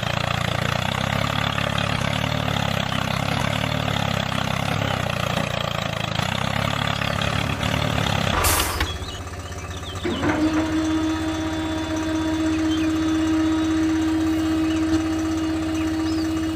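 A mini tractor model's motor running steadily. About eight and a half seconds in there is a sharp click and the sound changes, settling into a steadier hum with one clear tone.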